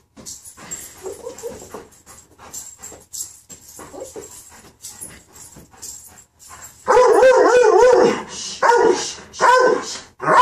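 Doberman whining and yelping. The cries are faint at first, then loud and wavering in pitch from about seven seconds in, coming in three or four bursts.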